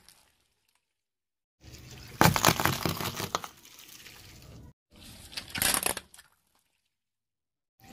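Car tyre rolling over and crushing small crunchy objects on concrete, such as plastic packaging and a plastic lid: a crackling, crunching burst about two seconds in, then a shorter one about five and a half seconds in. Each clip cuts off abruptly to silence.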